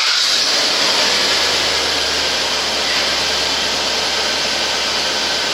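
1997 Audi A8's 4.2 V8 idling steadily just after being started, heard mostly as a loud, even hiss with a low steady hum underneath. The engine is misfiring on cylinder 3 because of a bad coil pack.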